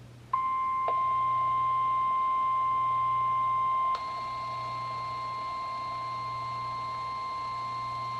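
NOAA Weather Radio warning alarm tone: a steady, loud 1050 Hz tone coming through weather radio receivers, the signal that a warning-level message (here a special marine warning) is about to be read. It starts a moment in. About four seconds in there is a click, the tone drops in level, and a faint, higher tone joins it.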